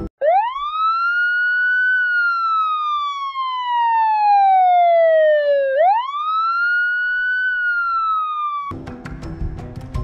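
Emergency vehicle siren wailing: twice it sweeps quickly up in pitch and then slides slowly back down, before cutting off near the end.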